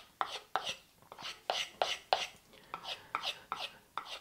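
A small knife blade being stropped on a strop board with quick alternating strokes, about three scraping strokes a second.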